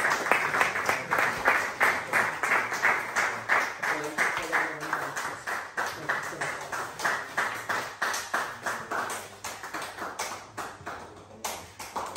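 A small audience clapping in a steady rhythm, about four claps a second, slowing and fading out near the end.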